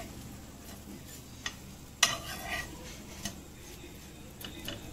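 Steel spatula scraping and knocking against a nonstick frying pan as slices of bread toasting in butter are flipped, with the loudest clack about two seconds in and lighter clicks after. A faint sizzle of the butter runs underneath.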